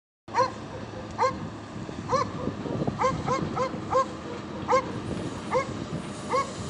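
A dog barking repeatedly, about a dozen short barks at uneven intervals, over a steady low rumble.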